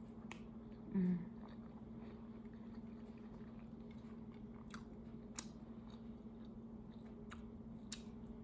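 Close-up chewing and mouth sounds of someone eating braised pork humba and rice by hand, with scattered wet smacks and clicks. There is a brief, low, voice-like sound about a second in.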